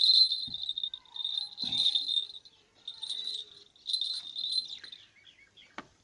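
Insect trilling steadily at a high pitch, in bouts of about a second separated by short pauses, with a couple of soft knocks and a sharp click near the end.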